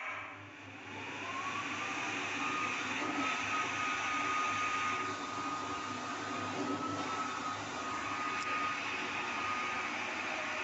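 Electric dryer's blower motor spinning up and running: a rush of air with a motor whine that rises in pitch over the first two seconds, then holds steady.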